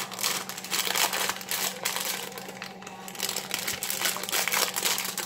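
Clear plastic wrapper crinkling as hands pull and twist it off a rolled pie crust.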